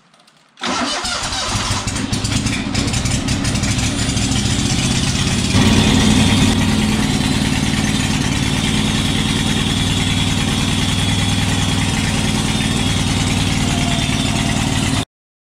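Steiner 420 Max garden tractor's Kohler 20 HP two-cylinder engine starting up about half a second in and then running steadily. It gets a little louder about five and a half seconds in and cuts off suddenly near the end.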